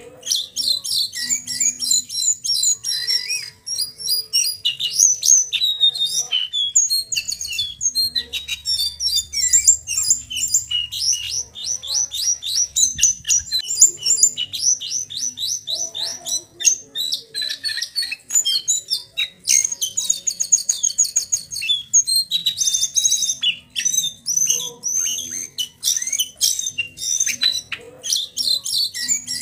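A juvenile male brown jongkangan (speckled young bird) singing: fast, high-pitched chattering trills and runs of quick notes, with short whistled phrases, going on almost without pause.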